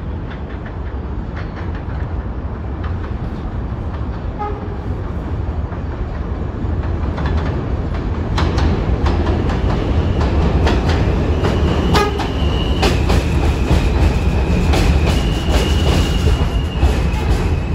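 New York City subway train running on the rails, a steady rumble that builds from about halfway, with rail-joint clicks coming thicker and faster. A thin, high squeal comes and goes near the end.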